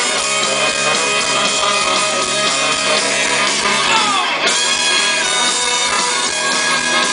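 Live rock band playing on stage: electric guitars, bass guitar and a drum kit. About four seconds in, a note slides down in pitch.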